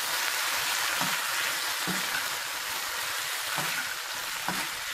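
Fried chicken pieces, onion and capsicum sizzling in oil in a hot pan as they are tossed with a perforated steel spatula. The sizzle is steady, and the spatula scrapes through the pan a few times.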